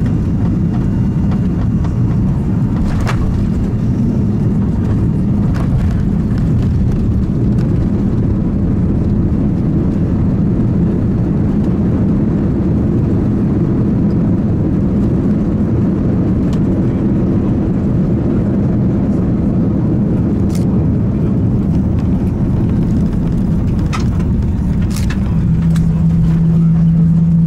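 Cabin noise of an Airbus A340-300 rolling on the runway after landing: a steady low rumble of engines and wheels, with a few light clicks. A steady hum comes in near the end as the noise grows slightly louder.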